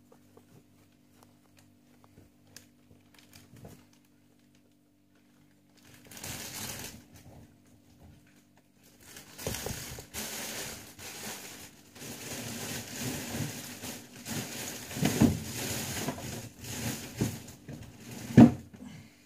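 Guinea pig rustling and crinkling through dry hay and bedding. It starts after a few quiet seconds and becomes steady about halfway through, with a few sharp knocks near the end.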